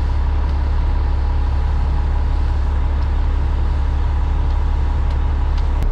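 Kenworth cement mixer truck running steadily while its drum spins to discharge concrete: a loud, even, deep engine drone with a faint steady whine above it.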